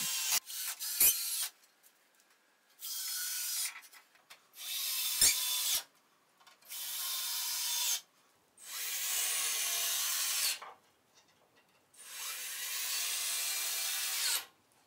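Cordless drill-driver driving black self-tapping screws through wooden shelf boards into timber crosspieces, in six short runs of a second or two each. There is a sharp knock about a second in and another about five seconds in.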